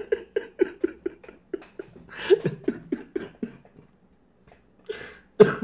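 A woman laughing uncontrollably in short gasping bursts, about four a second, breaking into coughs and fading out. After a pause, a couple more bursts come near the end.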